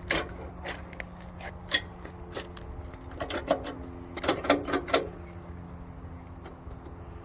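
Scattered clinks and clanks of steel sawmill parts being handled and shifted during unpacking, busiest about halfway through, over a steady low hum.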